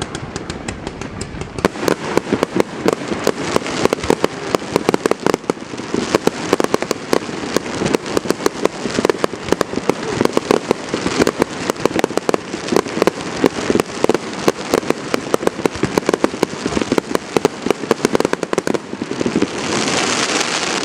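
Aerial fireworks bursting in a rapid, unbroken barrage of sharp bangs and crackling pops, many per second. A louder hissing rush builds near the end.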